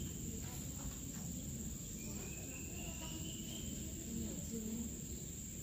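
Steady high-pitched insect trill from the vegetation, with a fainter rising whistle-like call repeating every couple of seconds, over a low background rumble.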